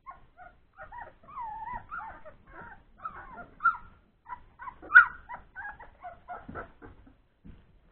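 Three-week-old Old English Sheepdog puppies whimpering and squealing as they play, a rapid string of short, high whines and yips that bend up and down in pitch, with a louder cry about five seconds in.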